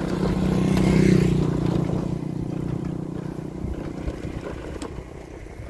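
A small motorcycle engine running close by, loudest about a second in, then fading away as it falls behind.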